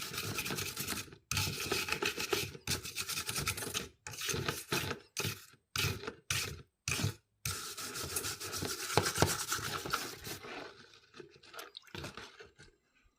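Scrubbing a greasy metal range-hood grease grate in strokes with short breaks, loosening the grease with automotive wax and grease remover; the scrubbing fades out near the end.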